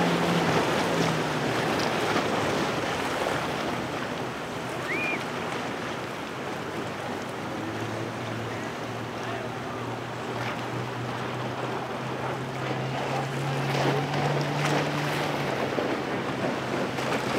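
Outboard motors of small skiffs running at speed, a steady low hum over the hiss of spray and wake water, with wind on the microphone. The hum rises a little in pitch in the last few seconds.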